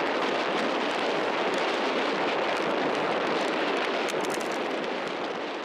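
Strong wind blowing in a steady, loud rush that fades away over the last second or so.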